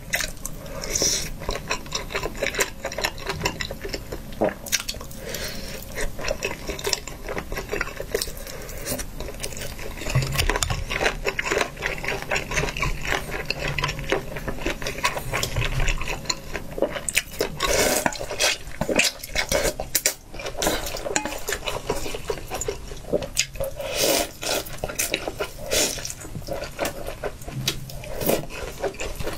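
Close-miked eating and tableware sounds: chewing from a skewer, then a metal ladle scooping noodles and broth out of a hot pot into a stainless steel bowl with clinks of metal on metal and liquid pouring, and noodles being eaten from the bowl near the end.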